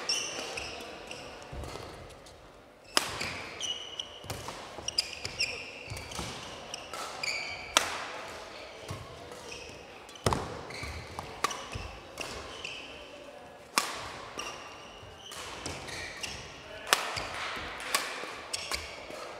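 Badminton doubles rally: a string of sharp racket strikes on the shuttlecock, with short high squeaks of shoes on the court floor between them, echoing in the hall.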